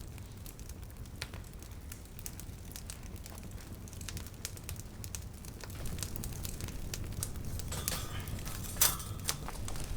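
Wind rumbling on the microphone, with scattered crackles and clicks throughout and a louder crack near the end.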